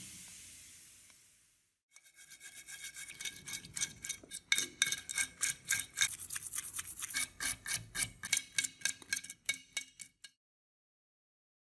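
Fizzing of a rust-removal bath dying away, then a small brush scrubbing rusty metal parts in liquid in a glass dish, with rapid back-and-forth strokes that stop suddenly near the end.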